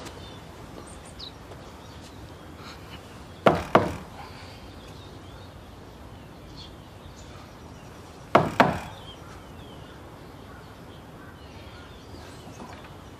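Knocking on a front door: two quick knocks, then about five seconds later two more.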